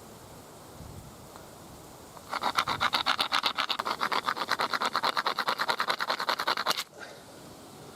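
Hollow deer leg bone tube being ground on a sandstone slab: a scraping rasp in quick, even back-and-forth strokes, rounding off the tube's edges. It starts about two seconds in and stops abruptly about five seconds later.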